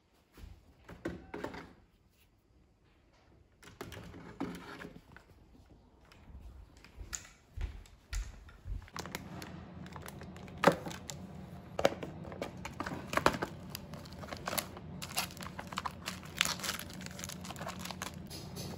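Plastic fishing tackle being handled and packed: packets of plastic sabiki chum baskets crinkling, and a clear plastic tackle case and packaged rigs clicking and knocking in irregular bursts. A low steady hum runs underneath from about halfway through.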